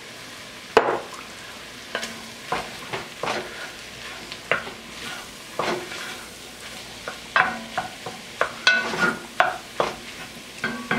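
Wooden spoon stirring flour into butter and vegetables in an enamelled pot, working up a roux: irregular scrapes and knocks of the spoon against the pot, the sharpest about a second in, over a steady low sizzle of the cooking.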